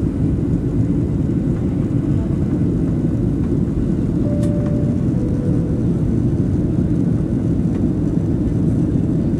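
Steady low roar of a jet airliner's engines and airflow, heard inside the passenger cabin as the plane climbs out after takeoff. About halfway through, two short faint tones sound one after the other, the second lower.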